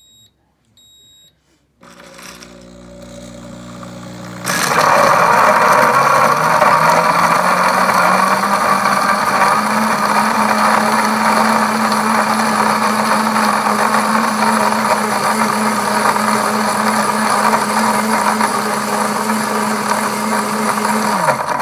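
Pampered Chef Cooking Blender running its smoothie program: a few beeps from the control panel at the start, then the motor starts with a low hum and, a couple of seconds later, jumps to full speed. It blends ice, lime juice and liquor with a loud, steady whirr whose pitch rises and settles, then the motor slows just before the end.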